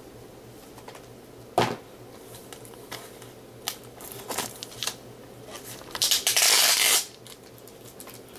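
A mailed package being opened by hand: a sharp knock about a second and a half in, a few light rustles and clicks, then about a second of loud ripping as the packaging is torn open.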